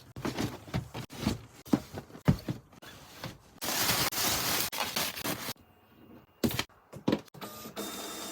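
Cardboard model-kit boxes being handled, with short knocks and rustling. About halfway through there is a steady rasping noise lasting about two seconds.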